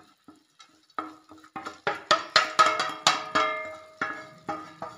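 A steel bowl knocked repeatedly against the rim of a pan to shake out chopped nuts, a quick run of ringing metallic taps that starts about a second in and stops shortly before the end.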